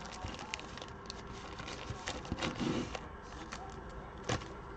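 Foil trading-card packs (2021 Panini Prizm basketball) handled and shuffled by hand, crinkling with many small scattered clicks. There is a duller bump about halfway through and a sharper click near the end.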